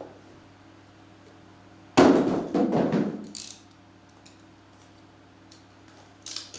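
A sudden knock followed by about a second of rustling and scraping, then a short hiss, and a brief sharp click near the end: hands handling the trading-card box and its packaging.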